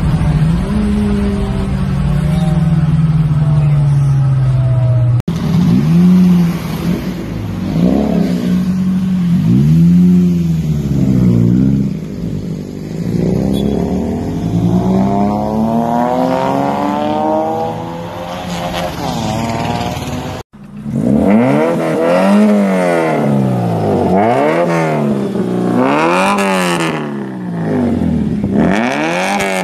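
Modified Maruti Suzuki Zen engines with custom aftermarket exhausts being revved in place, the exhaust note rising and falling over and over. The sound changes abruptly twice, about five and twenty seconds in, as one car's revving gives way to another's. The last car blips about once a second.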